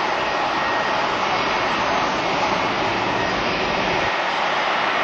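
Airbus A319-111's CFM56 turbofan engines running steadily as the airliner rolls down the runway: an even rushing jet noise with a faint thin whine held through it.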